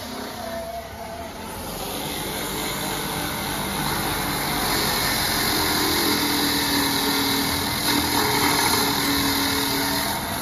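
A handheld rotary power tool running steadily as it scours and polishes the rear brake caliper bracket clean of deposits where the pad shims seat. It builds up over the first two seconds and eases off near the end.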